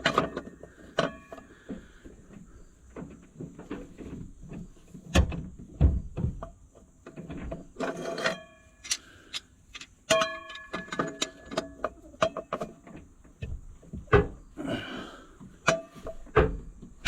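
Steel parts being worked together by hand: a PTO shaft being fitted and locked onto the tractor's PTO stub, with irregular metal knocks and clanks, several of them ringing briefly.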